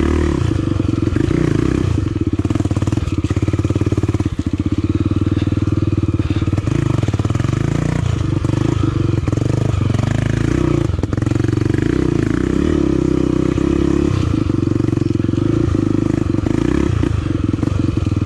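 Single-cylinder engine of a Honda Tornado trail motorcycle running continuously while riding, with a rapid, even firing beat and small rises and dips in throttle.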